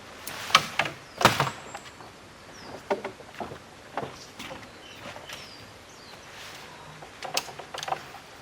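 A series of irregular knocks and clicks, loudest early and again near the end, from objects being handled.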